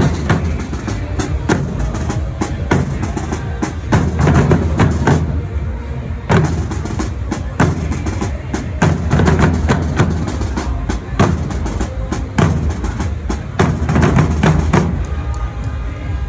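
A group of street drummers playing a marching rhythm on large field drums: a dense run of stick strokes with heavier accented beats every second or two.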